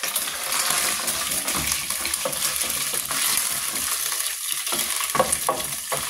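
Beef sizzling as it dry-fries in a pot, with a steady hiss. It is stirred, with a few sharp clicks in the second half.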